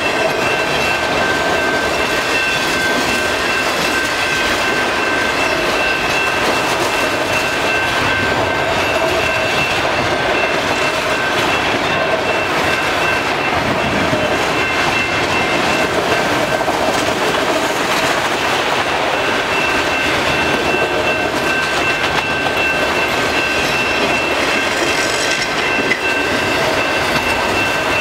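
Autorack freight cars rolling past: continuous wheel-on-rail noise. Two steady high-pitched tones ride over it and drop out for a few seconds around the middle.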